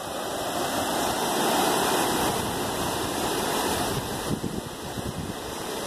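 Steady rushing of a flash-flooded creek running high and fast over its banks.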